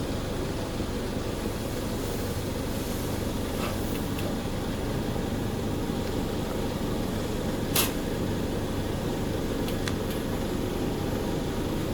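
Steady low hum of factory machinery, with a single sharp click about eight seconds in and a few fainter ticks.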